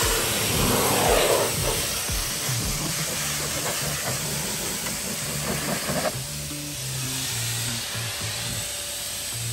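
BIGBOI car-detailing dryer blower blowing air through its hose nozzle to blast water off the car's paintwork: a steady, loud hiss that drops away about six seconds in. Background music plays underneath.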